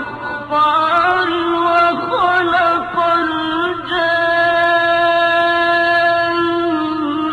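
A male reciter's voice in melodic Quran recitation. It ornaments the line with pitch glides, then holds one long steady note from about four seconds in.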